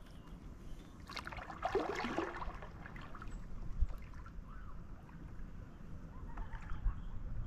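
Kayak paddling on a lake: paddle blades dipping and water trickling and splashing around the boat.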